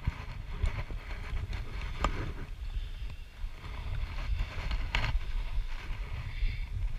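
Low rumble of wind and rubbing on a body-worn camera's microphone, with metal clinks of harness carabiners and lanyard gear; the sharpest clinks come about two seconds in and about five seconds in.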